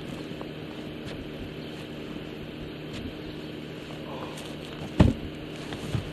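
Snow shovel pushing and scraping snow across a snow-covered roof, with a loud knock about five seconds in and a smaller one near the end, over a steady low hum.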